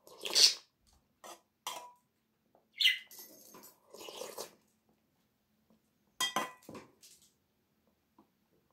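A metal spoon clinking and scraping against a metal bowl of hot soup, with slurping sips from the spoon at the start and again about four seconds in, and a cluster of clinks near the end.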